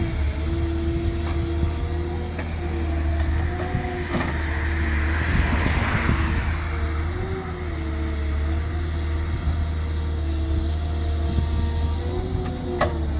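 Caterpillar M318D wheeled excavator running: a steady low diesel drone with a whine above it that wavers in pitch, swelling in the middle, and a sharp click near the end.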